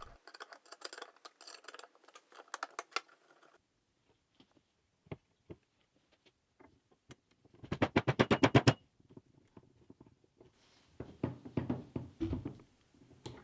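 Metal parts and hand tools clinking, tapping and knocking as a gear lever assembly is put together, with a quick run of rapid clicks a little past the middle and another cluster of clicks near the end.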